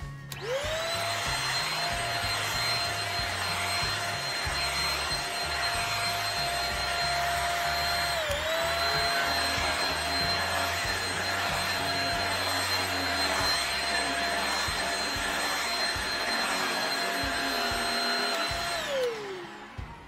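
Shark Rocket corded stick vacuum switched on, its motor spinning up to a steady high whine over a rush of air as the powered brush head runs over a rug. The pitch dips briefly about eight seconds in, and near the end the motor is switched off and winds down with a falling whine.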